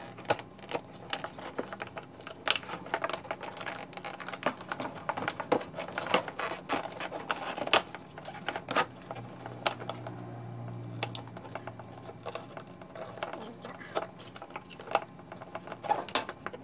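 Irregular plastic clicks and rattles from handling a windshield washer pump, its wiring connector and the plastic washer fluid reservoir as the pump is slid into place. A low steady hum runs for a few seconds midway.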